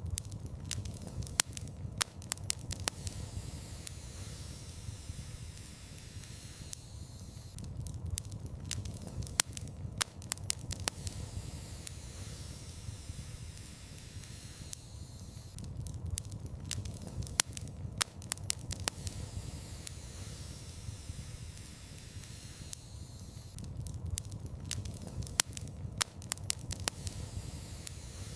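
Wood fire in a fireplace crackling, with clusters of sharp pops about every eight seconds over a low steady rumble and hiss.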